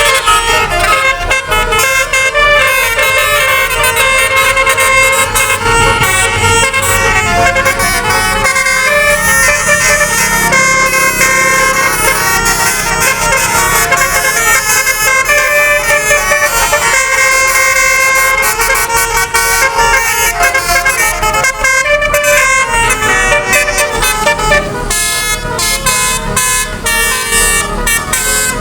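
A bus's telolet horn, a multi-tone Basuri air horn, playing a tune of changing notes, loud and continuous.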